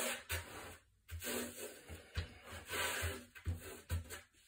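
Hands rubbing and patting over the painted top of a windsurf board: quiet, irregular scuffing strokes with a few soft knocks.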